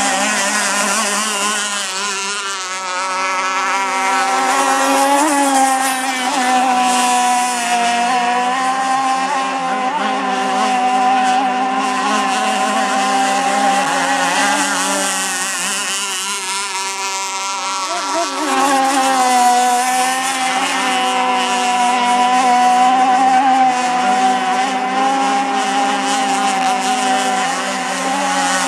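Two radio-controlled racing boats running at speed, their motors making a continuous buzzing whine whose pitch wavers gently up and down as they run and turn.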